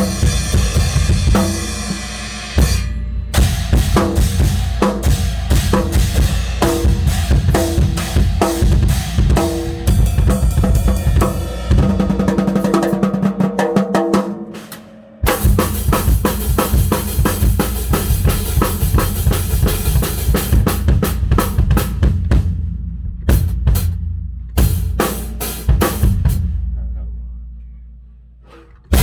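Tama acoustic drum kit with Evans heads being played: fast fills across bass drum, snare, toms and cymbals. About halfway the playing stops briefly while a drum rings out, then comes back in with a sudden hit, and near the end the kit rings down and fades.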